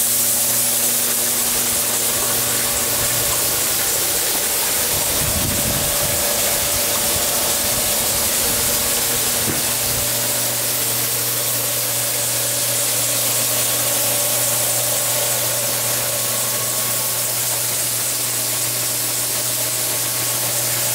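Vegetable jet washer running: its water jets spray with a steady hiss over a steady electric hum from the machine. A low rumble comes and goes between about four and ten seconds in.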